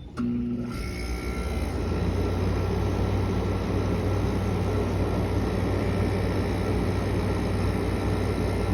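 Kenmore 10,000 BTU casement air conditioner switched on: a click, then within the first second the fan and Tecumseh rotary compressor start together and run on with a steady low hum and rushing air.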